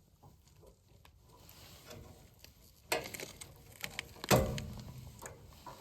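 Handling noise from wiring a replacement furnace control board: a few faint ticks, a sharp click about three seconds in and a louder knock about a second later, as the wires are moved across one by one.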